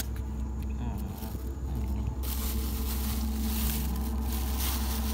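A thin plastic bag crinkling as it is handled, starting about two seconds in, over a steady low hum. A sharp click comes right at the start.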